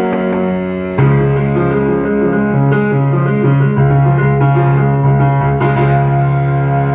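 Music with sustained keyboard chords and a steady low note, changing chord about a second in.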